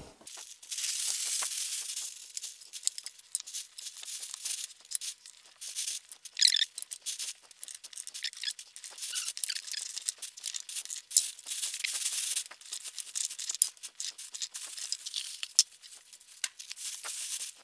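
Plastic roasting bag crinkling and rustling as handfuls of chopped raw vegetables are dropped and pushed into it, the pieces clicking and rattling against each other.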